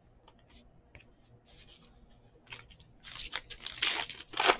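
Foil wrapper of a Panini Mosaic Baseball card pack crinkling and tearing open in a dense rustle from about three seconds in, after a few light clicks of cards being handled.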